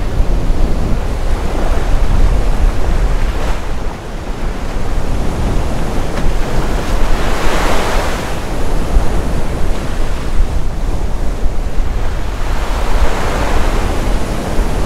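Wind buffeting the microphone over the rush of short, choppy seas washing past a sailboat sailing upwind. The water noise swells about eight seconds in and again near the end.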